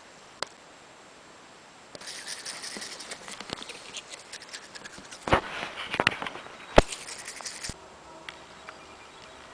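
Handheld camera being moved about and handled close to its microphone: rustling and crackling with many small clicks, starting about two seconds in and stopping near the end, with a few sharper knocks in the middle.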